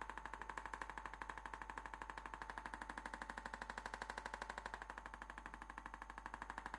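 Handheld electric percussion adjusting instrument tapping rapidly against the patient's head and neck, a steady, even train of about ten clicks a second.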